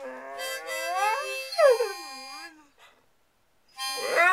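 A dog howling along to a harmonica: wavering, bending howls over held harmonica notes, with a sharp falling note about one and a half seconds in. Both stop for about a second, then the howl swoops up and starts again with the harmonica near the end.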